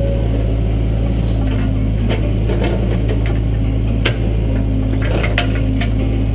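Caterpillar 307C excavator's diesel engine running steadily as the boom and bucket work, heard from the operator's cab, with scattered sharp clicks and knocks over the drone, the loudest about four seconds in.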